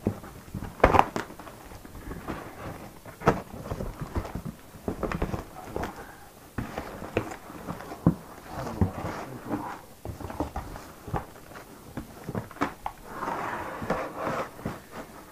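Cardboard shipping box being opened by hand: flaps pulled back and folded over, with irregular knocks, scrapes and crinkles of cardboard and a sharp thump about a second in. A longer rustle near the end as the packing inside is handled.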